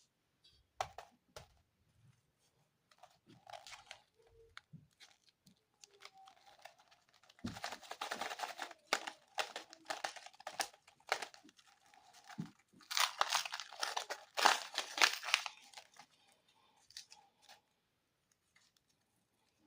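Plastic candy wrapper crinkling and tearing in crackly bursts, two long stretches in the middle, the second the loudest, with scattered smaller crackles around them.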